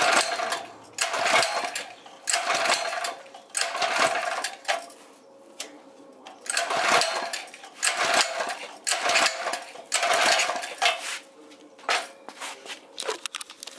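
Predator 212 single-cylinder engine's recoil starter pulled over and over, about eight pulls in two runs of four with a short pause between, the engine turning over without catching because the idle screw is backed all the way out. A few lighter clicks follow near the end.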